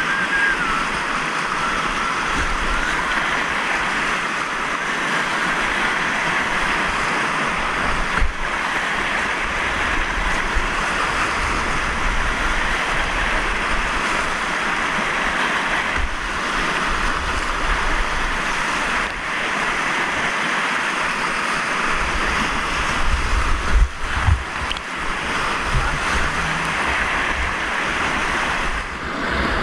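Whitewater rapids rushing steadily around a kayak, heard close up from the boat. In the last third, low thumps and buffeting join the rush.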